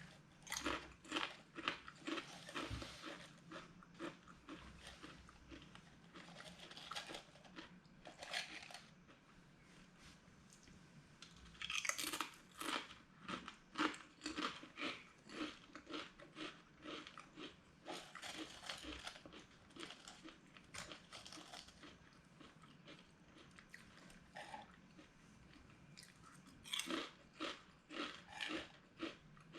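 A person biting and chewing crunchy potato chips: runs of sharp, close crunches with short pauses between mouthfuls.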